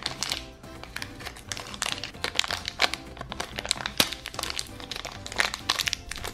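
A thin plastic wrapper crinkling in a series of short crackles as fingers peel and crumple it off a small toy, over background music.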